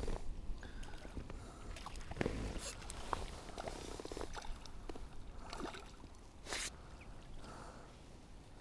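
Reservoir water lapping gently at the edge, with a few light clicks and knocks and a brief hiss about six and a half seconds in.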